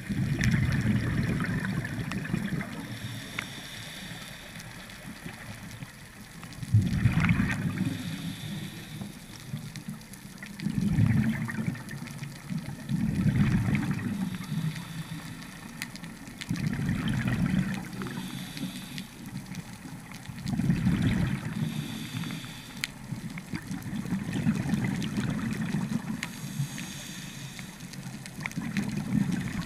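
Scuba diver breathing through a regulator underwater: a gush of exhaled bubbles about every three to four seconds, alternating with a fainter hiss from each inhale.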